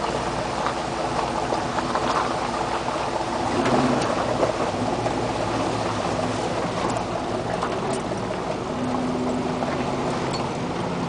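A 4x4 truck's engine running at low speed off-road, a steady drone heard from inside the cab, with scattered clicks and rattles as the truck works over the rough trail.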